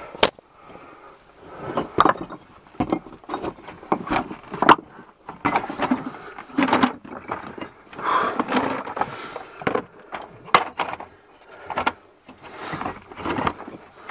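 Irregular knocks, clatters and scraping of someone crawling and shuffling over loose dumped bricks in a cramped cellar shelter, with close handling noise.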